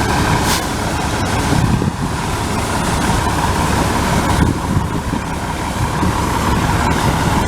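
Steady low rumble of a running vehicle engine, with a faint steady whine and a brief click about half a second in.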